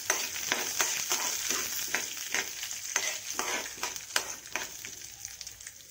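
Urad dal and mustard seeds sizzling in hot oil in an aluminium kadai, a tempering being fried, with irregular clicks and scrapes of a steel spoon stirring them against the pan. The sizzle and stirring fade near the end.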